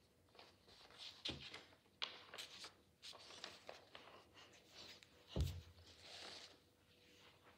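Faint rustling and crinkling of sketchpad paper as a page is flipped over and smoothed down by hand, with a soft thump about five and a half seconds in.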